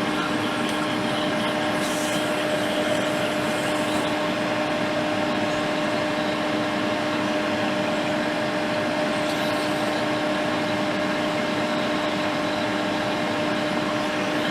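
Hot air rework station blowing steadily, a constant rush of air with a low, even hum, while it heats small components to desolder them from a phone logic board.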